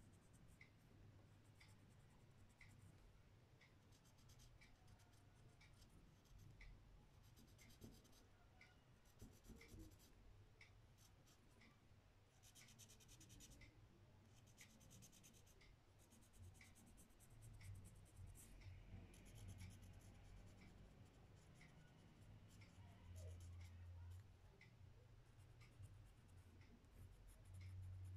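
Faint scratching of a coloured pencil stroking over paper, coming in short runs of strokes. Under it is a faint regular ticking, about three ticks every two seconds.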